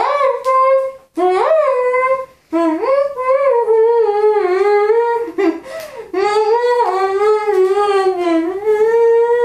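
A woman humming a melody with a digestive biscuit held between her lips, in four long phrases with short breaks between them.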